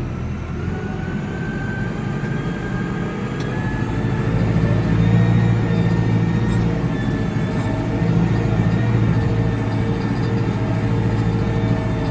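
Tractor engine running as the tractor drives along, with a thin gear whine rising in pitch over the first few seconds. The engine gets louder about four seconds in, as if pulling harder or revving up.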